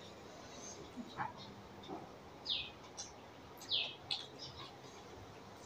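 Faint bird chirps: two short calls falling in pitch, about two and a half and nearly four seconds in, with a few fainter calls and soft clicks between them.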